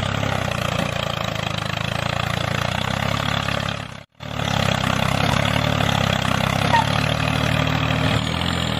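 Tractor engine running steadily with an even low chug. It cuts out for a moment about four seconds in, then picks up again unchanged.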